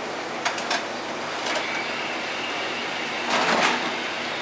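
A metal roasting pan set down on a stovetop: a few light clicks in the first second and a half, then a louder metal scrape and rattle a little over three seconds in, over a steady background hiss.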